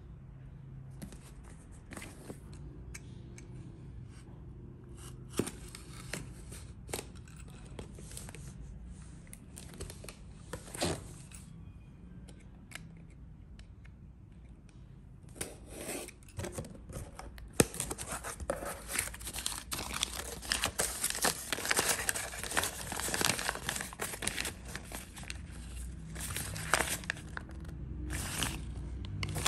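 A cardboard box is handled with scattered taps and knocks. From about halfway through, scissors cut into the packaging, and its plastic wrap tears and crinkles in dense, crackling bursts. Crinkling paper follows near the end as the instruction sheet is handled.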